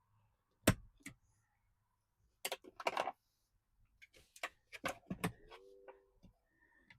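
Plastic pry tools working a Ford Bronco's window switch bezel loose: a series of sharp plastic clicks and snaps as the trim clips give. There is a brief squeak of plastic about five and a half seconds in.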